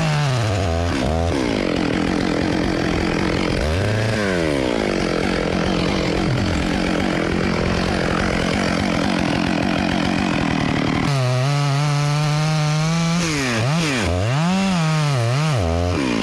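Stihl chainsaw cutting into a large tree trunk, running steadily under load through the middle of the stretch. Near the start and over the last few seconds the engine revs up and down several times.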